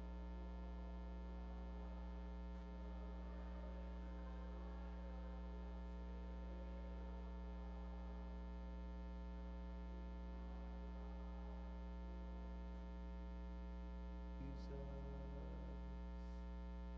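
Steady electrical mains hum, a low buzz with a stack of even overtones, with only faint, indistinct room sound beneath it.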